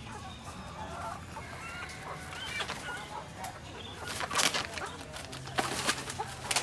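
Caged hens clucking all through, many short calls overlapping. A loud scuffling noise comes about four seconds in and again around five and a half to six and a half seconds in, as a hen is pushed into a feed sack.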